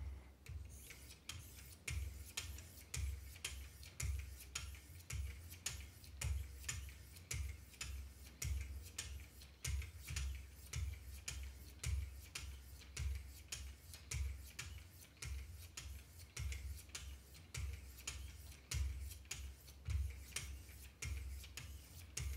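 2200 grit diamond sharpening stones on a Wicked Edge guided-rod sharpener, stroked along a clamped knife blade in a steady rhythm of short scraping ticks, about three a second, with a dull knock about once a second.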